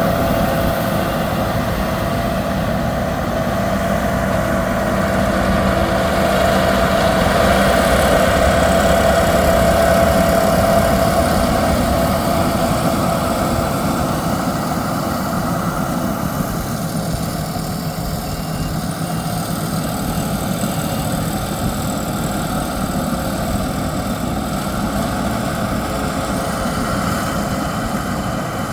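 Yanmar YH6115 six-row combine harvester running steadily while harvesting rice: a diesel engine and threshing machinery making a continuous mechanical hum with a few steady tones, a little louder about a quarter of the way in.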